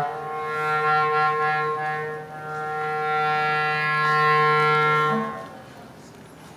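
Clarinet holding one long, steady low note. The note dips briefly in loudness about two seconds in, swells again, and stops about five seconds in.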